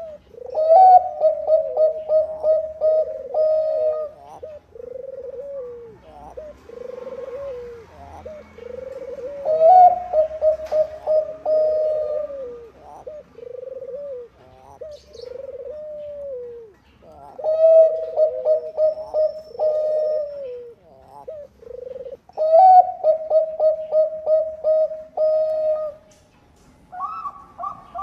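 Zebra dove of the Thai 'Bangkok' song strain (perkutut bangkok) singing its cooing song. It sings four phrases, each a rapid run of short staccato coos followed by several longer coos that fall in pitch. Near the end a higher-pitched series of coos begins.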